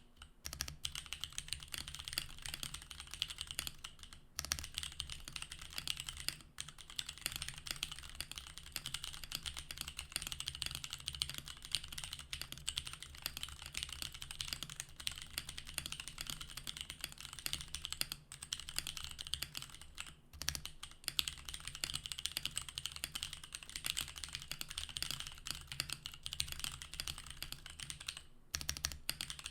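Steady fast typing on a Portico mechanical keyboard fitted with SP-Star Magic Girl tactile switches: a dense run of key clacks, broken by a few short pauses.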